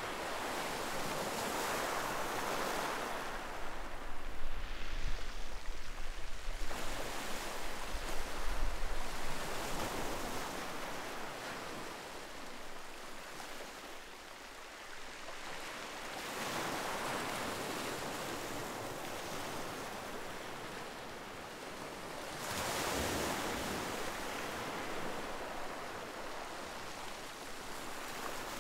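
Ocean surf: several waves breaking and washing in one after another, each swelling up and fading. Wind buffets the microphone with a low rumble for about five seconds, starting a few seconds in.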